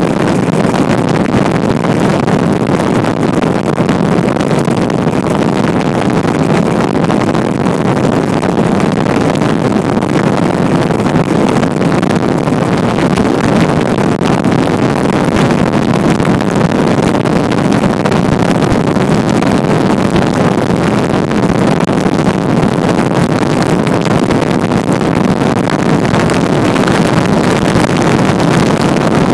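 Motorboat running at speed: a steady engine and hull noise with wind on the microphone.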